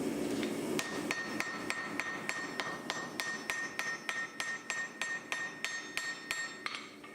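Hand hammer striking hot iron on an anvil in a fast, even rhythm, about three to four blows a second with a bright ring on each blow. The blows start about a second in and stop shortly before the end.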